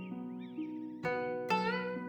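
Slow background music on a plucked string instrument: sustained notes ring out, with fresh plucks about a second in and again near the end. Short high chirping glides sound along with it about half a second in.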